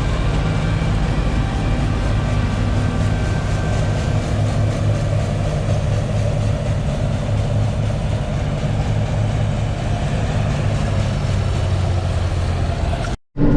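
Combine harvester running steadily while cutting wheat, a constant low engine hum with a faint whine above it. The sound drops out abruptly for a moment near the end.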